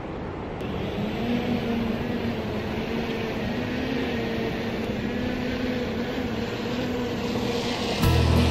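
Small quadcopter drone (DJI Mavic) lifting off: its propellers spin up about a second in, then hold a steady high hum. Just before the end, background music comes in.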